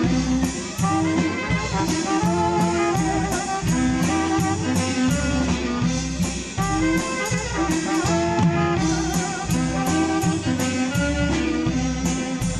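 A waila (chicken scratch) band playing a dance tune, with a saxophone melody over bass, electric guitar and drums keeping a steady, quick beat.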